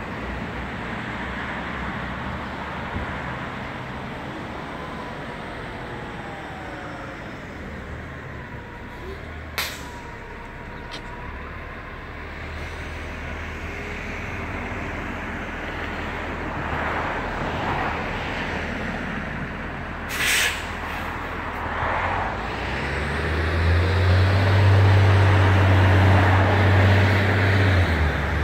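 Steady city traffic noise from passing vehicles, with a sharp click about ten seconds in and another about twenty seconds in. A deeper low rumble swells over the last few seconds.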